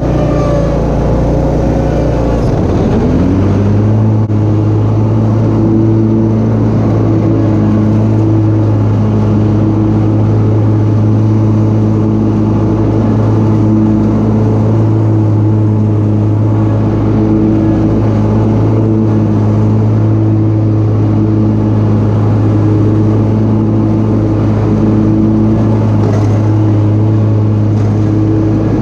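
John Deere Z970R zero-turn mower's engine speeding up a couple of seconds in, then running steadily at high speed while the mower drives over the lawn mulching leaves.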